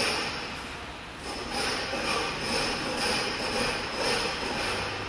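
Thin-blade slitter scorer zeroing its slitting-blade and scoring-wheel holders after power-up: steady mechanical running noise from the positioning drives, swelling and easing about once a second.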